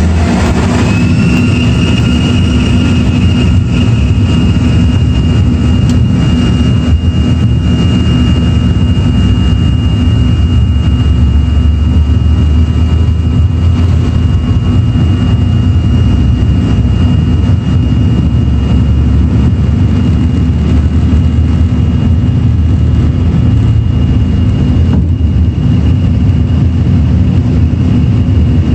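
A regional jet's turbofan engines, heard from inside the cabin, spooling up to takeoff thrust. A whine rises over the first two seconds, then holds steady over a deep rumble through the takeoff roll and liftoff.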